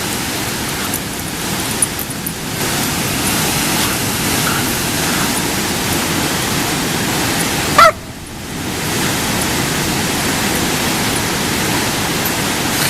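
Waterfall rushing: a steady, loud, even roar of falling water. About eight seconds in, a brief loud pitched sound cuts through and the rush dips for a moment.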